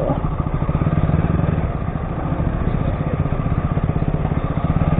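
KTM Duke 200's single-cylinder engine running steadily with an even, rapid pulse as the motorcycle is ridden slowly through mud.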